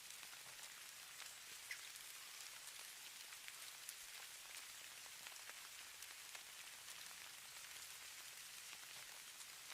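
Falling snow: a faint, steady high hiss dotted with many tiny ticks of flakes or grains landing.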